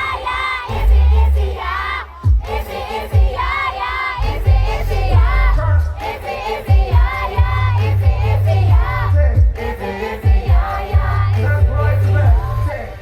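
Live hip-hop concert music: a heavy, pulsing bass line with sung vocal lines, and a crowd singing along.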